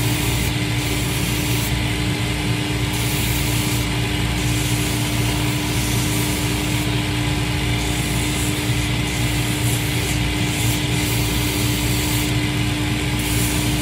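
Shoe repair finisher machine running with a steady motor hum while its sanding wheel grinds down a cowboy boot heel. The high, hissing sanding noise swells and drops every second or two as the heel is pressed to the wheel and eased off.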